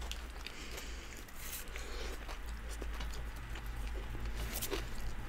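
Soft eating sounds: chewing, with scattered small clicks of forks and a couple of brief rustles of paper food wrappers, over a low steady hum.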